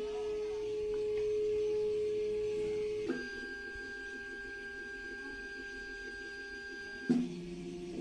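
Stepper motors of a DIY CoreXY 3D printer whining with steady tones as the print head makes long fast moves, at about 100 mm/s. The pitch jumps with a click about three seconds in, and again with a sharper knock near seven seconds as the head changes direction.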